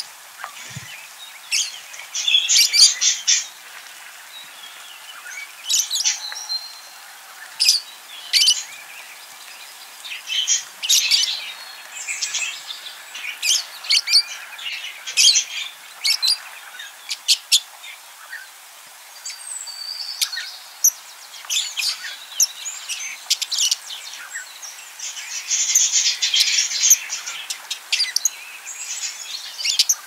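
Budgerigars chirping and chattering: a steady stream of short, sharp, high calls, with thicker runs of rapid chatter about a tenth of the way in and again near the end.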